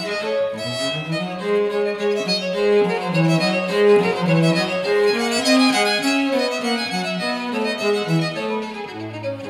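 Violin and cello playing together: a moving bowed violin line over a lower cello part, the cello dropping to a deep held note near the end.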